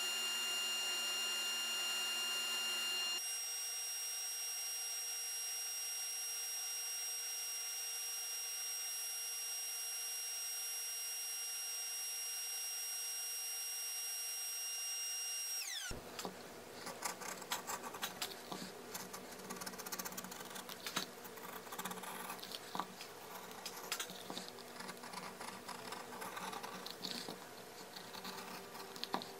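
Belt grinder running with a steady whine while the edge of a leather sheath is sanded on its belt. About halfway through the whine cuts off and gives way to light, irregular scraping and clicking as a hand edge tool trims the leather edge.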